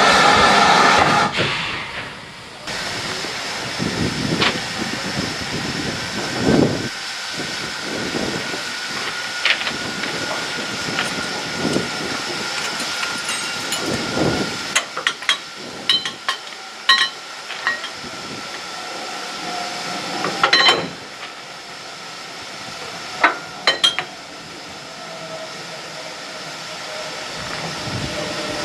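GWR 2251 Class 0-6-0 steam locomotive standing with a steady hiss of steam, after a loud rush of steam that cuts off about a second in. Low knocks and sharp metallic clanks come through the middle and later part as the screw coupling and vacuum brake hose between engine and coach are worked by hand.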